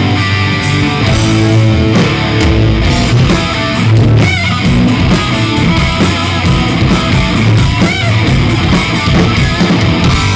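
Live hard-rock band playing loud: distorted electric guitar through Marshall amplifier stacks over bass and drums.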